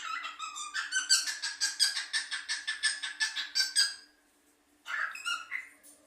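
Chestnut-bellied seed-finch (curió) singing: a fast run of evenly repeated notes, about six a second, lasting about four seconds, then after a short pause a brief second phrase near the end.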